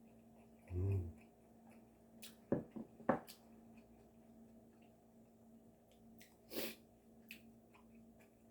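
Mouth sounds of someone eating a kimchi dumpling: a brief 'mm' hum about a second in, a few sharp smacking clicks between two and three seconds in, and a short sniff-like breath near the end.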